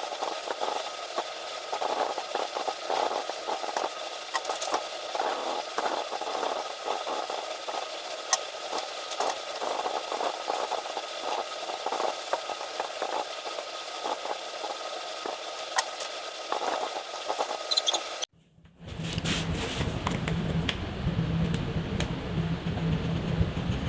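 Felt-tip markers scratching across paper in quick, continuous coloring strokes, with small tip clicks. About 18 seconds in the sound cuts out for a moment, and a different scratchy sound follows with a low steady hum under it.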